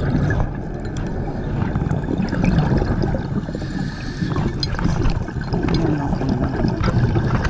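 Water rushing and gurgling around an underwater camera moving over a riverbed, a steady low noise with scattered small clicks and knocks.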